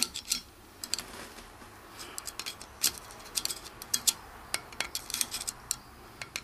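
Light, irregular metallic clicks and taps of a screwdriver tip working at the valve collets on a compressed valve spring in a cylinder head, picking the collets free.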